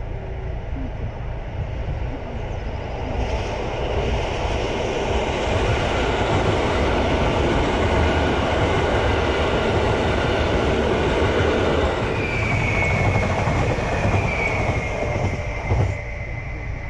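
Electric multiple unit passenger train passing close by, a steady rush of wheels on rail that builds over a few seconds and holds. Near the end a high, slightly falling whine comes in over it, with a short knock just before the rush drops away.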